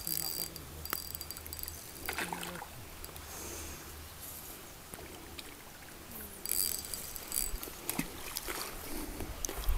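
Water sloshing and splashing as a hooked carp swirls and thrashes at the surface, with a few sharp clicks. The splashing is loudest about two-thirds of the way through and again near the end.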